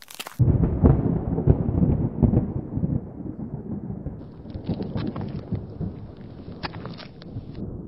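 Wind buffeting the microphone: a loud low rumble that starts suddenly and eases off after about three seconds, with scattered crackles and ticks.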